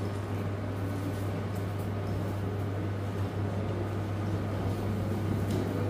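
Steady low hum under an even background of room noise, with no distinct events.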